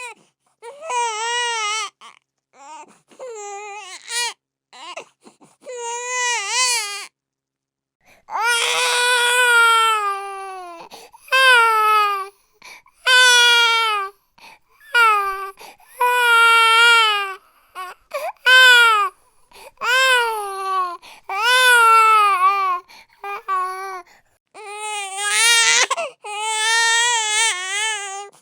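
A baby crying in repeated pitched cries with short gaps between them. The first several seconds are softer, broken whimpers; from about eight seconds in come louder, longer cries of a second or two each, one after another.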